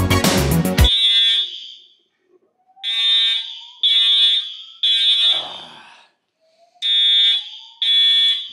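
A building fire alarm sounding its evacuation pattern: loud, high beeps in groups of three with a pause between the groups, a false alarm set off by rain. Music cuts off about a second in, just before the beeps begin.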